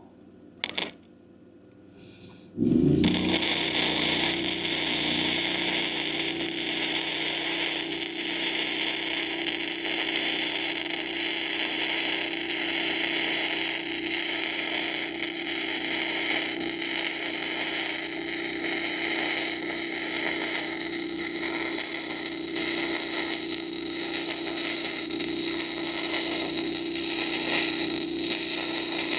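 Lincoln Electric Weld-Pak wire-feed welder running one long continuous bead on steel plate. The arc starts about two and a half seconds in, after a short click, and keeps up a steady crackling hiss with a steady hum beneath it.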